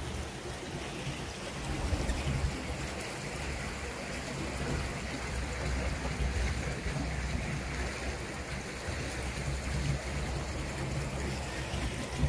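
Steady outdoor rushing noise with a low, fluttering rumble underneath, with no distinct calls or knocks standing out.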